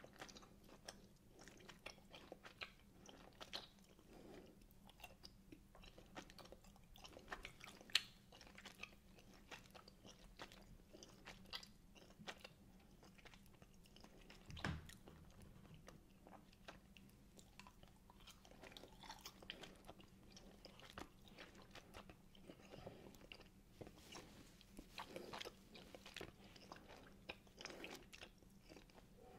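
Quiet, close-miked chewing of wine gums: the gummy sweets give many small, irregular wet clicks and smacks, with one sharper click about a quarter of the way in and a single low thump about halfway through.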